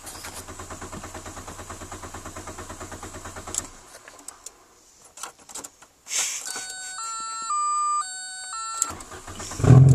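A car starter cranking the engine in an even rhythm for about three and a half seconds without it catching, after the car ran out of gas and was refuelled from a can. About six seconds in, a short beeping melody of stepped tones plays. Near the end the engine fires and keeps running.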